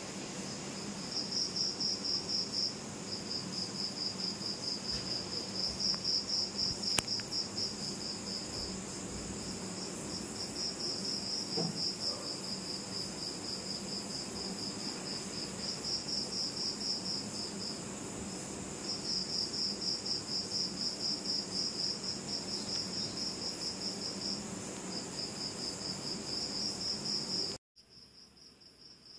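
Crickets chirping in a fast, continuous pulsed trill that swells and fades in stretches. A single sharp click comes about seven seconds in, and near the end the chirping suddenly drops much quieter.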